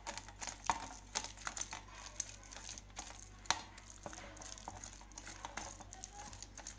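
Boiled chana dal being mashed by pressing and rubbing it with a steel cup through a perforated steel sieve: irregular scraping and light metal clicks, with a few sharper knocks of steel on steel.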